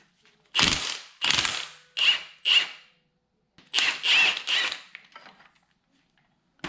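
Cordless impact wrench hammering in about seven short bursts, with a pause near the middle, as it undoes the rusty 21 mm top nut on a BMW E90 front strut's shaft.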